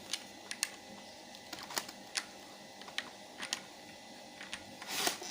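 Irregular sharp clicks and light knocks of hard plastic pressure-washer parts being handled and fitted together, with a short rustling burst near the end.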